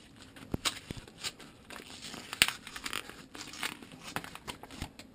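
A yellow paper envelope being torn open by hand: crackling, crinkling paper with many small snaps and one louder crack about halfway through.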